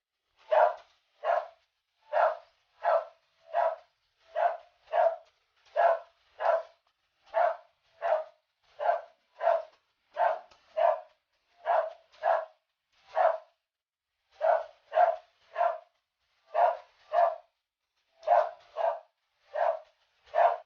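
A dog barking repeatedly in short, evenly spaced barks, about one every 0.7 seconds, with a short pause about two-thirds of the way through.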